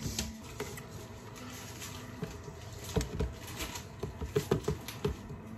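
Light clicks and knocks of a ceramic plate being set down and handled on a plastic cutting board, a quick irregular run of them starting about three seconds in.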